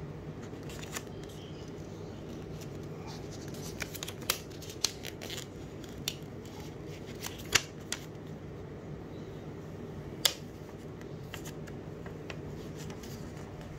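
Clear plastic carrier sheet of heat transfer vinyl being peeled by hand off a t-shirt, rustling and crinkling, with scattered sharp crackles. The loudest crackles come about halfway through and about three-quarters of the way through, over a steady low hum.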